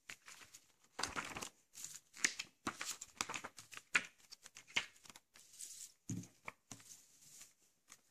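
A paper leaflet being folded up and handled, then a paper insert card picked up, in a run of irregular paper rustles and crinkles, loudest about a second in.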